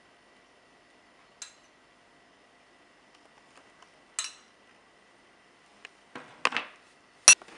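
A metal spoon clinking a few times against a small ceramic bowl as oil is spooned over a plated dish, with a clatter and then a sharp, louder knock near the end as the bowl and spoon are put down.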